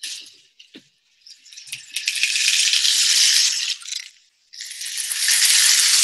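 Rainstick tipped over twice, its pebbles trickling down the tube in two long hissing cascades of about three seconds each, the second beginning a little after the first dies away. A few light clicks come first, as it is picked up.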